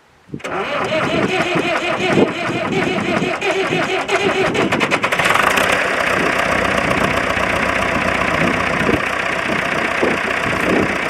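David Brown 996 tractor's diesel engine, first start after ten years standing: it cranks and fires raggedly, catches about five seconds in and then runs on steadily with a knocking clatter.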